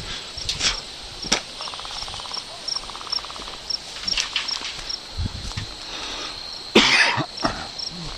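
Crickets chirping steadily, about two or three chirps a second, with a few sharp clicks scattered through and a louder rustling burst about seven seconds in.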